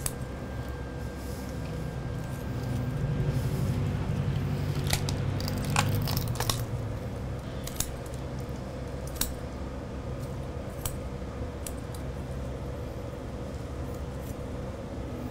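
Kitchen shears cutting through a raw bone-in turkey breast: scattered crisp snips and crunches. A low rumble swells and fades in the first half.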